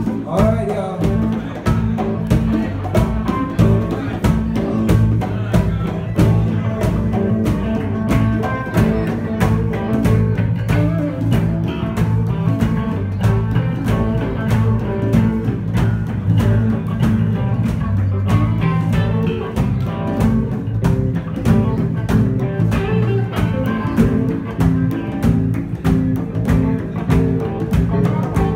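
Live band jamming: guitar and bass over a busy run of drum strokes that never lets up, with no pause.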